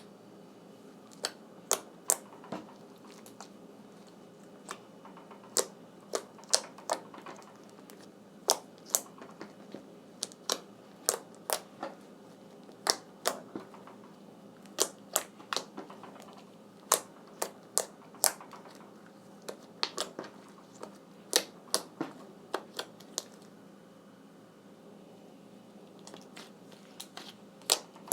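Slime being kneaded and squeezed by hand, giving sharp, irregular clicking pops, about one or two a second.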